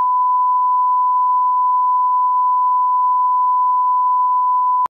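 A steady 1 kHz sine test tone, the line-up tone at the head of a broadcast commercial: one unbroken pure beep at constant level that cuts off suddenly at the very end.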